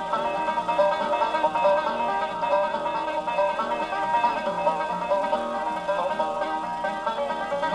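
Instrumental background music, a quick succession of pitched notes over a steady accompaniment.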